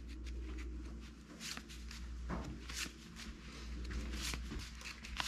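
A stack of 1985 Fleer baseball cards being thumbed through by hand: a few short, soft slides and flicks of card stock against card stock.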